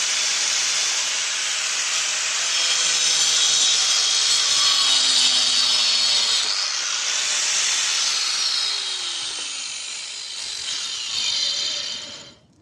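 Angle grinder with a tungsten-carbide-tipped multipurpose wood disc cutting through a rotten board and the nail in it: a loud, steady grinding that cuts off about twelve seconds in.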